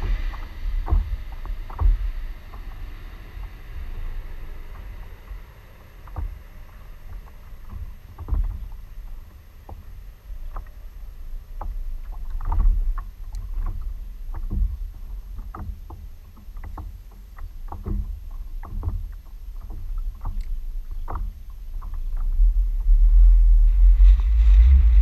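Small waves slapping against a plastic sit-on-top kayak hull, making irregular light knocks and low thumps. A steady low rumble grows loud in the last few seconds.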